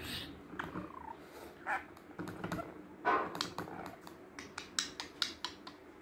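Budgerigar chattering in short chirps and warbles, one louder call about halfway through. Sharp clicks come in quick succession in the second half.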